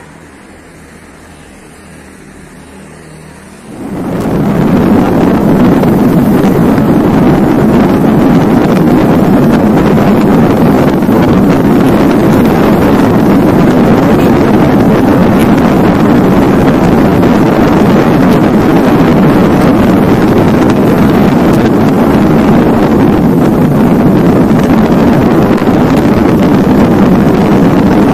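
Strong wind buffeting the microphone of a camera moving at road speed, a loud, steady roar that starts suddenly about four seconds in, after a few seconds of quiet outdoor background.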